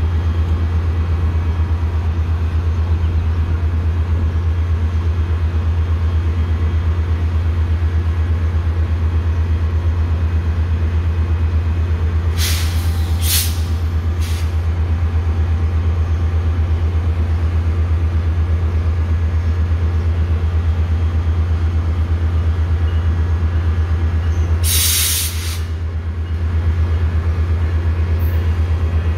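Standing diesel commuter train idling with a steady low drone. Its air brakes give short bursts of hissing: three quick ones about halfway through and a longer one near the end.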